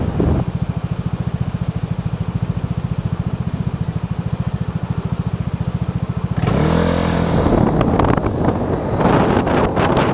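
Vespa GTS 250 i.e. scooter's single-cylinder four-stroke engine idling with an even, fast low beat while stopped. About six seconds in it revs up as the scooter pulls away, and wind rushes over the microphone once it is moving.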